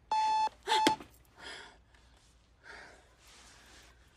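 Digital bedside alarm clock beeping: a high electronic beep, then a third cut short a little under a second in. Afterwards only a few faint breathy, rustling sounds.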